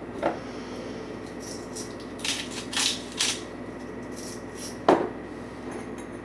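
Sea salt being dispensed from a small container into a hand: three short gritty rasps a couple of seconds in, then a single knock about five seconds in.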